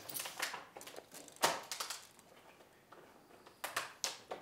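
Scattered light knocks and crunching clicks at irregular intervals, the sharpest about a second and a half in and a cluster near the end.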